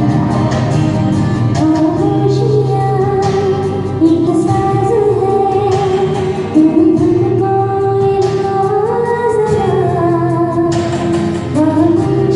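A woman singing a slow Bollywood ballad melody in long held, gliding notes over instrumental accompaniment with light percussion.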